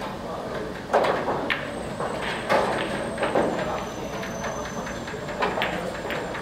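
Pool balls clicking against each other and against the cue: several sharp, unevenly spaced knocks over a few seconds of 9-ball play.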